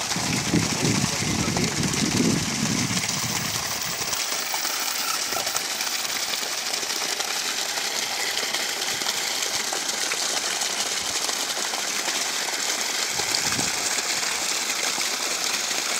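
Tata 2 HP solar BLDC surface pump running, with water gushing steadily from its 2.5-inch outlet and splashing onto wet ground. A low rumble joins it for the first few seconds.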